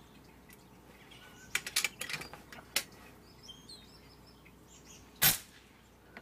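Starling chirping and clicking, with a few short whistled notes, then one sharp, loud crack about five seconds in, the shot of an FX Royale PCP air rifle.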